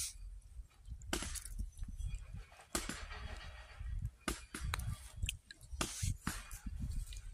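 Scattered clicks and rustling from hands taking a small fish off the hook and baiting the hook with a worm, over a low rumble.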